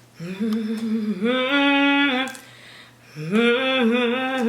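A young woman's voice humming two drawn-out phrases of a tune, each about two seconds long, the second beginning about three seconds in.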